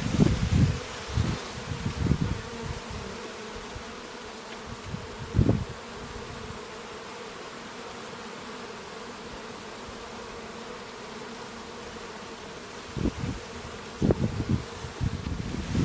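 Bees buzzing in a steady hum. Low rumbling bumps come and go in the first two seconds or so, once about five seconds in, and again over the last three seconds.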